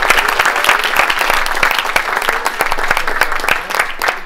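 A small group of people applauding, with many quick, overlapping hand claps.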